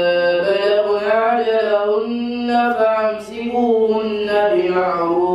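A boy reciting the Qur'an in a melodic chant, drawing out long notes that glide up and down, with a brief breath about three seconds in.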